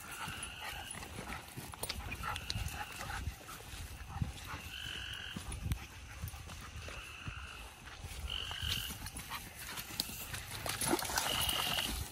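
Leashed mountain cur hunting dogs whining in short, high cries every second or two, over footsteps through grass and brush.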